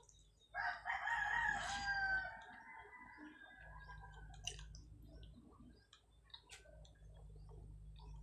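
A rooster crows once: one long call starting about half a second in and trailing off by about four seconds. Faint clicks and smacks of someone eating with their hands follow.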